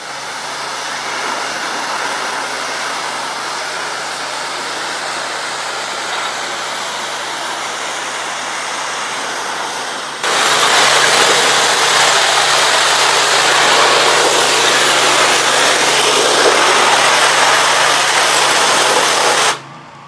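Pressure washer engine running steadily under the hiss of a high-pressure wand spraying concrete edges. The spray gets abruptly louder about halfway through and cuts off just before the end.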